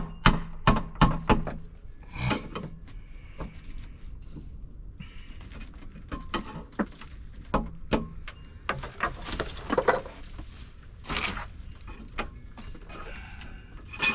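Hands handling parts and wire during electrical work: a quick run of sharp clicks and knocks in the first two seconds, then scattered scraping, rustling and a few louder knocks.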